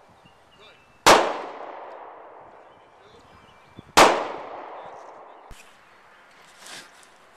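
Two handgun shots about three seconds apart, each followed by a long echoing tail.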